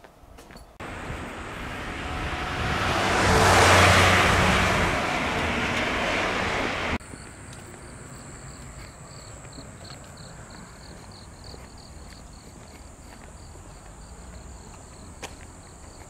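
A car passes close by on the road, its noise swelling to a peak about three seconds in and then cutting off abruptly a few seconds later. After that come quieter roadside insects: a rapid, repeating high chirp over a steady high whine.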